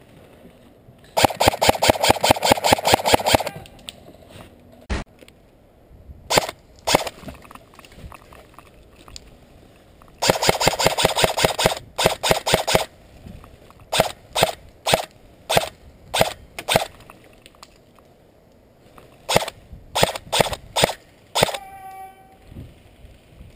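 Airsoft electric rifle (AEG) firing: two full-auto bursts of about seven shots a second, each roughly two seconds long with the gearbox whirring under them, and many single shots between and after.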